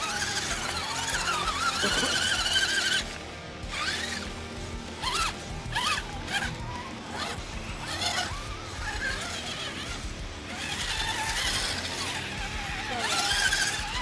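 Electric motors and gears of RC scale crawler trucks whining as they drive through mud, the pitch rising and falling with the throttle; loudest as a truck passes close by about a second in and again near the end.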